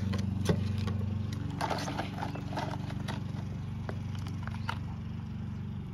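Metal kitchen tongs clicking and knocking against plastic tubs and rock specimens as the acid-soaked rocks are lifted out and set into water, a few separate knocks. Under them runs a steady low hum.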